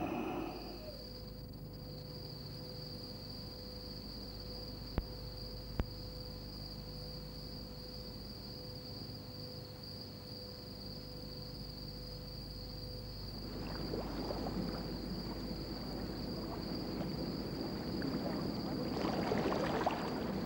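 A steady, high insect drone like a cricket, with two sharp clicks about five seconds in. From about two-thirds through, the splashing and rushing of water grows louder, fitting horses and men wading across a shallow river.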